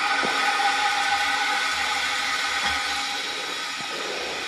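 Water rushing through a just-opened valve into a newly installed water line: a steady hiss with a faint whistling tone, slowly getting quieter as the line fills.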